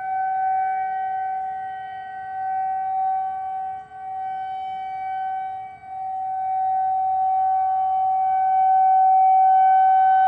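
Outdoor tornado warning siren sounding a steady tone in its monthly test. The tone swells and fades in loudness and grows louder over the last few seconds, while a fainter, lower tone dies away about halfway through.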